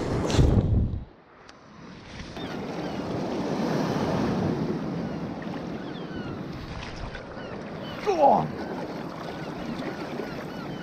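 Surf washing onto the beach with wind on the microphone. A loud rush in the first second cuts off suddenly, and about eight seconds in a brief sound slides down in pitch.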